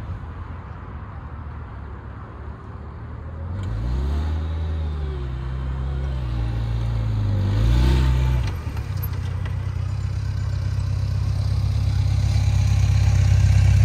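Large sport-touring motorcycle engine revving up and down through tight turns, its pitch rising and falling several times from about four seconds in. After a dip near the middle it runs steadier and grows louder as the bike comes up close and stops.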